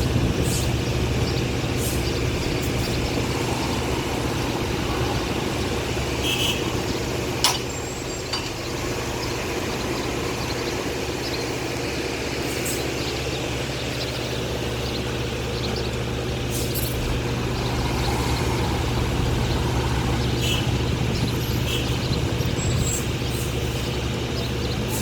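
Diesel engine of a HOWO 8x4 dump truck running steadily as the truck tips a load of stone, with one sharp knock about seven and a half seconds in.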